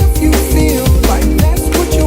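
Electronic background music with heavy bass and a fast, steady drum beat.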